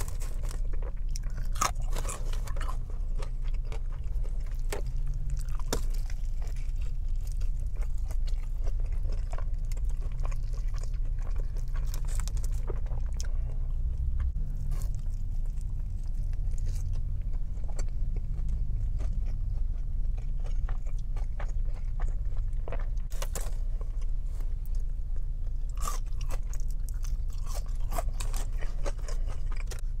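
Close-miked chewing and biting of a pulled pork sandwich on a soft bun topped with french fries, with many small wet clicks and soft crunches as the food is worked over. A steady low hum runs underneath.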